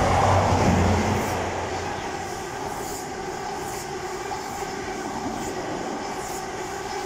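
High Speed Train passing at speed: the MTU-engined Class 43 power car goes by first, loudest with a low engine hum. Then its Mark 3 coaches follow in a steady rush of wheels on rail, with a click about once a second as the bogies pass.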